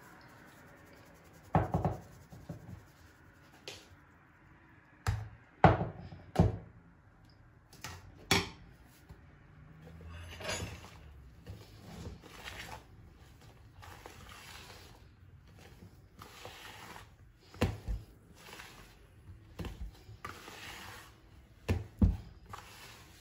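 A metal mesh sieve is knocked against the rim of a mixing bowl in several sharp taps over the first eight seconds while flour is sifted. After that comes a softer rubbing and squishing as a hand mixes the flour into a soft butter dough, with a couple more knocks near the end.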